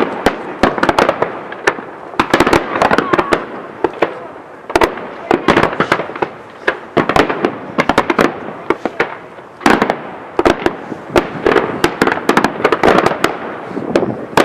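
Dense barrage of daytime aerial fireworks: rapid crackling and popping mixed with louder bangs. It eases briefly about four seconds in and again near ten seconds.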